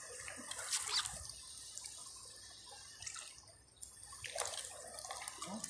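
Shallow seawater trickling and splashing among shoreline rocks, with louder crackly splashes about a second in and again near the end.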